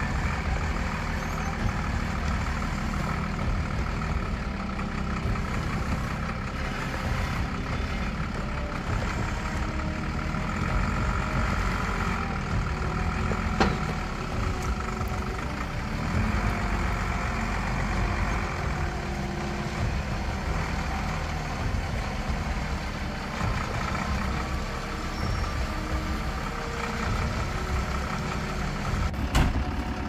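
Mercedes-Benz Unimog truck's diesel engine running steadily. Two sharp clicks cut through it, one about halfway through and one near the end.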